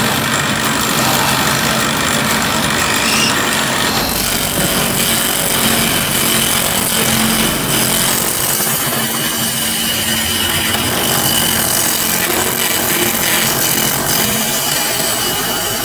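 Wood lathe running while a hand-held gouge roughs a square timber blank down to a cylinder: a loud, continuous scraping and cutting of steel on spinning wood over the lathe's steady hum. The cutting noise turns denser about four seconds in.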